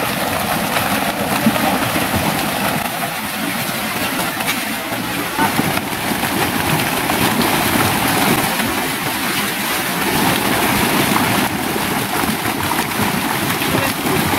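Dense, continuous splashing and churning of water as a mass of fish leap and thrash inside a seine net being hauled through a pond.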